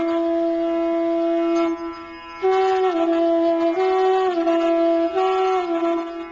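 Music: a single wind instrument plays slow, long-held notes, moving back and forth between two neighbouring pitches, with a brief break about two seconds in.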